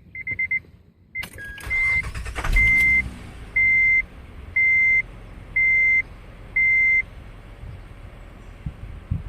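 2007 Acura TL being started: a few quick chime beeps, then a sharp knock as the starter engages and the engine cranks briefly, catches and settles to a steady idle. This startup knock is the weird sound the owner is asking about; its cause is unknown. A dashboard warning chime beeps about once a second, five times, after the engine catches.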